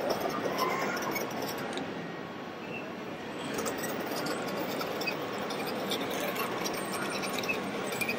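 Steady background noise of a large hall with faint scattered clicks. It dips slightly about two to three seconds in.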